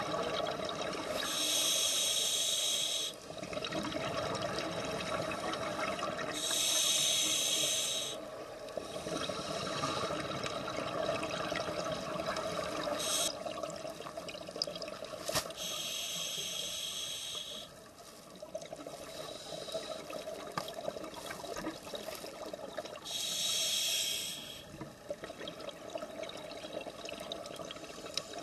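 Scuba diver breathing through a regulator underwater: four loud bursts of exhaled bubbles, each lasting about two seconds and coming every six to eight seconds, over a steady low hiss.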